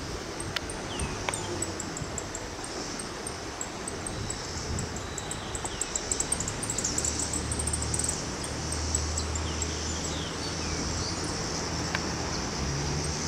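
Outdoor ambience of birds chirping, with short downward calls and a rapid high twittering that peaks about six to eight seconds in. A low engine hum from a vehicle comes in about five seconds in.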